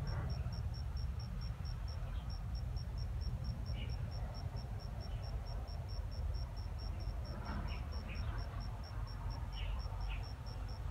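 A cricket chirping in an even, high-pitched pulse, about four chirps a second, over a steady low rumble, with a few faint short chirps now and then.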